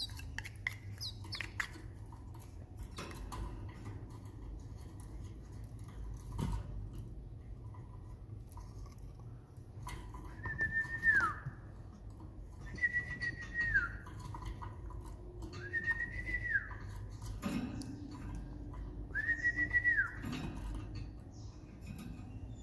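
Young Timbrado canaries chirping in quick, high notes near the start. From about halfway through come four drawn-out whistles, roughly three seconds apart, each held steady and then falling in pitch.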